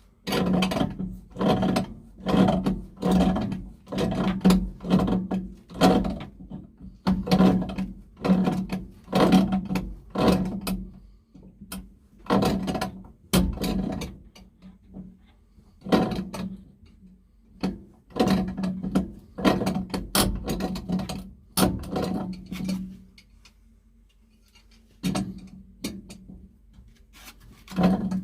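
Repeated rasping strokes of a hand tool working at a metal pipe fitting, roughly one to two strokes a second. There is a short pause about 23 seconds in, then the strokes start again.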